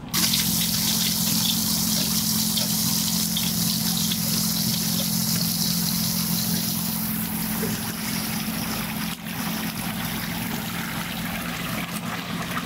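Pond-pump water pouring steadily from a PVC spray bar onto filter floss in a DIY bin filter, with a steady low hum underneath. It starts abruptly and is a little quieter in the last few seconds, where the water pours from PVC outlets into the pool pond.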